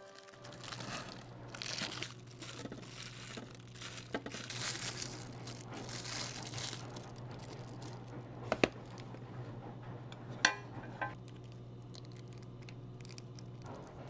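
Thin plastic film crinkling and rustling as it is peeled off a styrofoam natto container, followed by a few sharp clicks later on, over a steady low hum that stops near the end.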